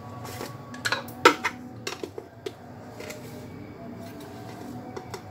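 A few scattered clinks and knocks of kitchen dishes and utensils being handled, the loudest a little over a second in.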